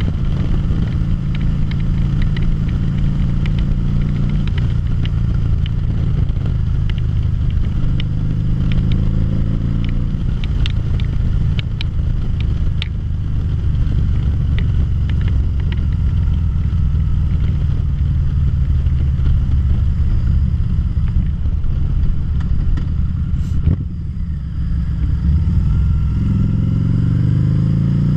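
2013 Harley-Davidson V-Rod Muscle's liquid-cooled V-twin running steadily under way, heard from the rider's seat. The level dips briefly about 24 seconds in, and the engine note changes pitch near the end.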